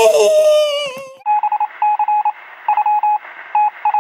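A child's voice cries out, falling in pitch, and cuts off about a second in. It gives way to rapid electronic beeps on one pitch, in short clusters like a telephone's tones, over a steady hiss: a 'technical difficulties' sound effect.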